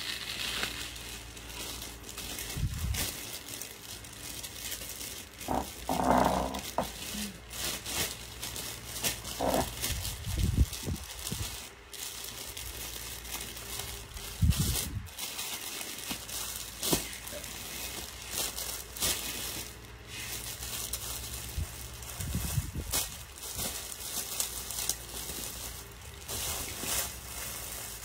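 Irregular rustling and crinkling close to the microphone, broken by scattered knocks and clicks and a few louder thumps: handling noise from someone moving about right by the phone.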